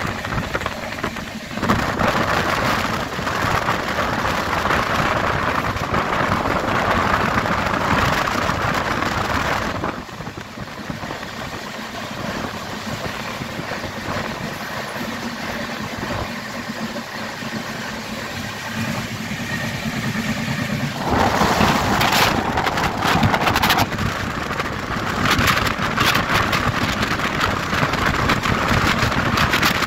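Running noise of an express passenger train, heard from inside a coach at speed: wheels on the rails and rushing air. It gets louder about two seconds in, eases off about ten seconds in, and swells again with sharp clattering knocks about two-thirds of the way through.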